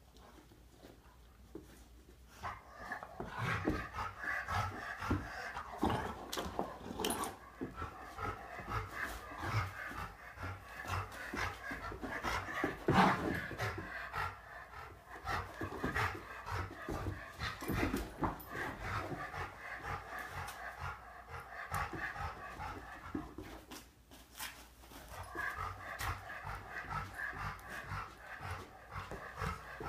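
Two dogs play-wrestling, panting hard with paws and bodies scuffling on the rug; a louder bump comes about halfway through.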